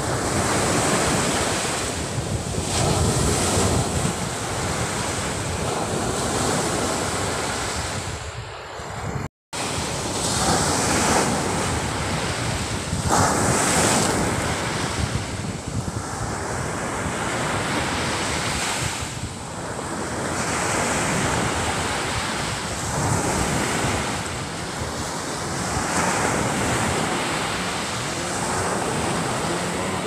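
Surf breaking and washing up a sandy beach, swelling every few seconds, with wind rumbling on the microphone. The sound cuts out for a moment about nine seconds in.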